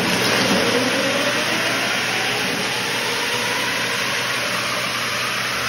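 Electric treadmill running just after being switched on, its motor whine climbing in pitch over the first couple of seconds and then holding steady, over the rushing noise of the belt carrying rows of die-cast toy cars.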